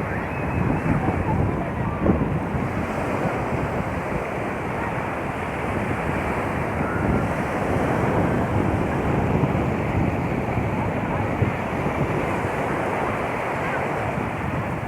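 Sea waves washing onto the shore, with wind buffeting the microphone as a steady low rumble.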